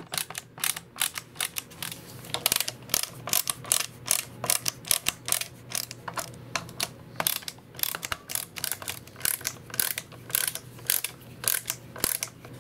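Screwdriver fitted with a security Torx T10H bit backing screws out of a plastic battery-charger housing. It gives a long run of quick, uneven clicks, several a second.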